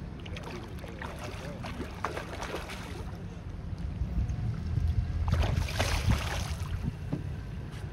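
A hooked salmon thrashing and splashing at the surface beside the boat, loudest from about five to nearly seven seconds in, over a steady low rumble.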